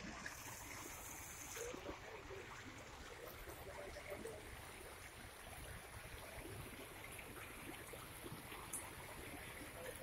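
Shallow creek water flowing steadily over gravel and out of concrete culvert pipes that have just been cleared of a debris clog.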